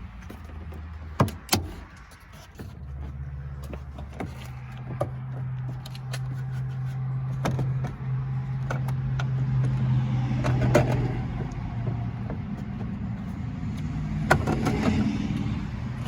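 Scattered sharp clicks and knocks as a car's tail light assembly is pried and worked loose from the body, over a steady low hum that sets in a few seconds in.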